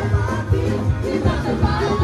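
Loud live gospel praise music: a band with a driving drum beat and heavy bass, with voices singing over it.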